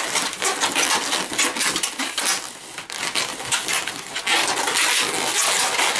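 Inflated latex modelling balloons squeaking and rubbing against each other and the hands as they are twisted and wrapped together, in quick irregular squeaks with a brief lull about two and a half seconds in.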